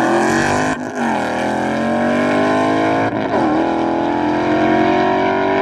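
Two drag-racing cars accelerating hard at full throttle away from the start line, side by side. The engine note climbs in pitch through each gear, with upshifts about a second in and about three seconds in.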